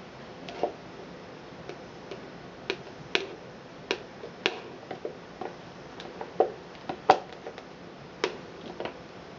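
A spatula scraping and tapping against the inside of a thin plastic cup as the last of the cold process soap batter is scraped out: irregular sharp clicks and ticks, about one or two a second.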